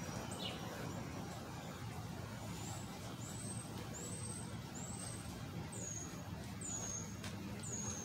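Steady low hum of street traffic, with a series of about seven short, high chirps, one roughly every 0.7 s, beginning a couple of seconds in.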